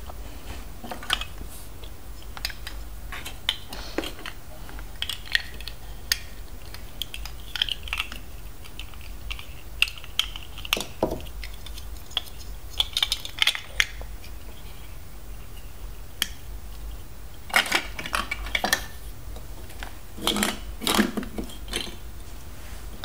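LEGO DUPLO plastic bricks clicking and clattering as they are handled and pressed together, in scattered clicks with two bursts of louder clatter in the last third.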